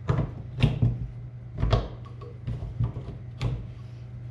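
Metal knocks and clinks, about seven at uneven spacing, as a steel pin is worked into the end of a planter row marker's hydraulic cylinder, over a steady low hum.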